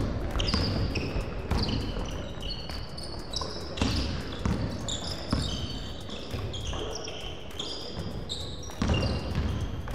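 Basketball dribbled on a hardwood gym floor, bouncing at irregular intervals, with sneakers squeaking in short high chirps as players cut and stop.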